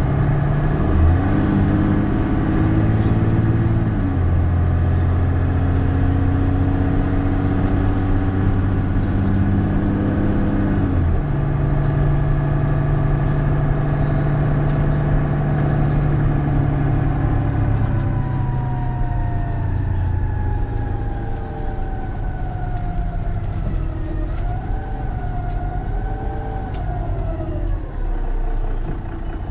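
Mercedes-Benz Citaro Facelift city bus engine and automatic gearbox, heard from on board, pulling up through gear changes with the engine note stepping in pitch in the first part. In the second half the note falls away as the bus slows, with a wavering whine near the end.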